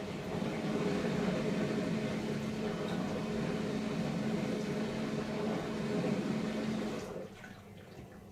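Bosch SKS60E02GB compact dishwasher running mid-cycle, a steady pump hum with water churning inside. It stops abruptly about seven seconds in, leaving faint dripping and trickling.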